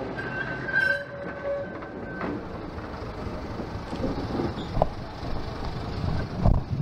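Small diesel switcher locomotive running slowly along yard track: steady rumble and rattle of wheels on rail, with a thin high whine over the first two seconds and two sharp knocks near the end.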